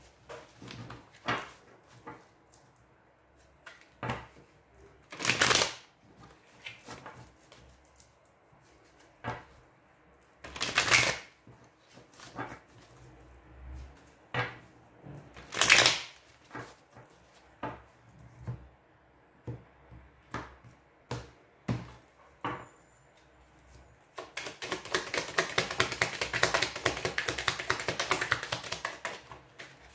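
A deck of tarot cards being shuffled by hand: scattered slaps and taps of the cards, then, about three-quarters through, a fast run of card clicks lasting about five seconds.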